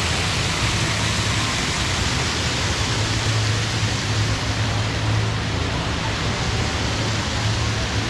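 Steady rushing of an indoor waterfall running over artificial rockwork, with a low steady hum underneath.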